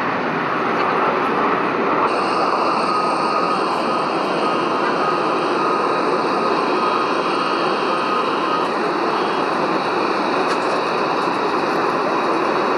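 Jet airliner turbofan engines, a steady rushing noise with a faint high whine over it.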